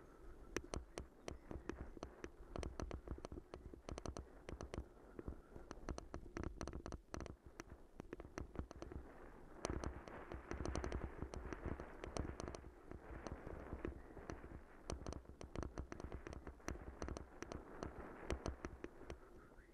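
Mountain bike rattling and jolting over a rutted, muddy dirt track: a dense, irregular run of clicks and knocks over a constant low rumble of tyres on rough ground.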